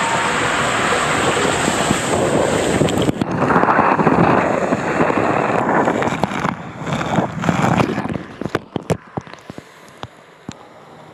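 Rushing water and a rider sliding fast through an enclosed twister tube water slide, a loud steady rush that grows stronger about three seconds in. It breaks into a run of sharp splashes and knocks, and after about eight seconds quietens to light splashing and drips as the rider slows in the runout lane.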